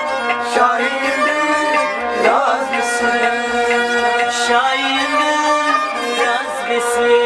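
A man singing a Kashmiri Sufi song with gliding, ornamented phrases, over instrumental accompaniment that holds steady notes, with a sharp percussive strike now and then.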